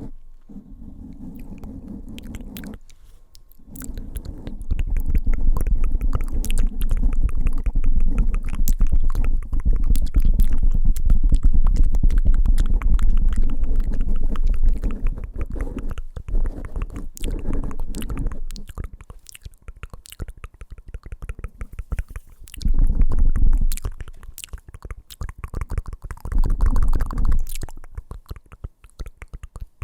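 Fingertips rapidly tapping and rubbing directly on a microphone: a dense patter of fine clicks over a deep handling rumble, heaviest for the first half and returning in two short loud spells near the end.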